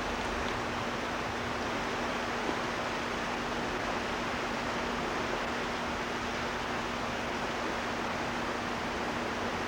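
Steady rushing of water below a dam, an even hiss-like noise with a faint steady hum underneath.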